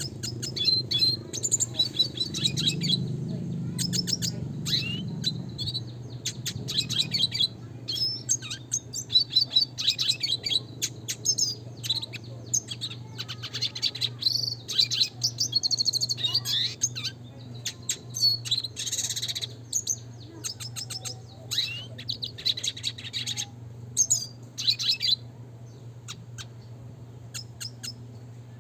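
Red siskin (Spinus cucullatus) singing: quick runs of sharp, high chirps and rolling trills with short pauses between phrases, over a faint steady low hum.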